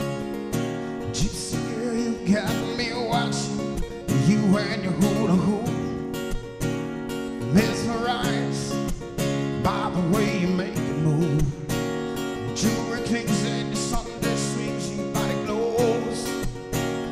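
A man singing to his own strummed acoustic guitar: steady chords with a solo male voice carrying the melody.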